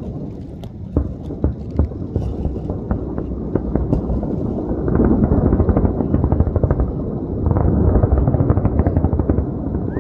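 Controlled demolition implosion of two hotel towers: a rapid series of sharp bangs from the explosive charges, then a heavy rumble of the collapse building from about five seconds in.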